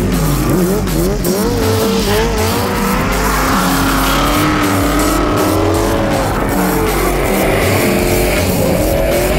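Drift engines revving hard, their pitch swooping up and down over and over, with tyres squealing as a Kawasaki ZX10 sportbike and a Corvette V8-powered Mazda RX7 slide sideways. Rock music plays underneath.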